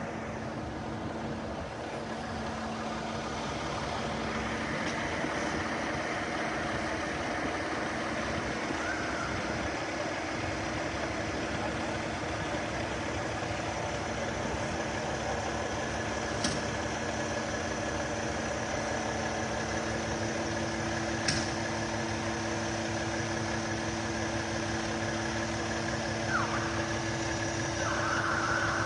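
Engines of fire apparatus idling steadily, their hum stepping up in pitch about two-thirds of the way in, with two sharp clicks along the way.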